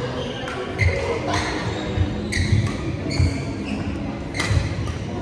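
A basketball bouncing on a court: a series of irregular thuds, with short high squeaks now and then.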